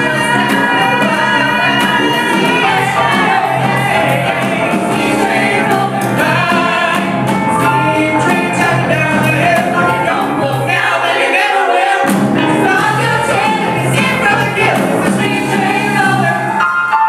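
Live singing with a small band of piano and guitar: a song performed on stage, with a lead singer over steady accompaniment.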